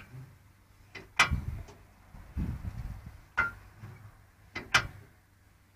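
Morris Oxford engine being turned over by hand with its starting handle: a few sharp metallic clicks and low thumps as the handle engages and the engine is pulled round against compression. The engine does not fire.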